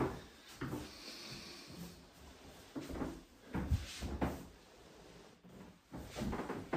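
Several soft, irregular knocks and thuds indoors, a second or more apart.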